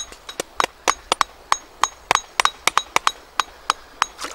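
Rapid chopping: a blade striking wood over and over, about three to four sharp knocks a second at an uneven pace.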